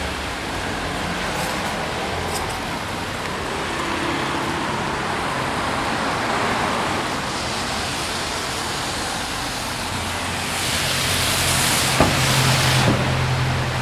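Busy city street traffic: a steady wash of cars going by, with a louder vehicle passing near the end and a sharp knock about twelve seconds in.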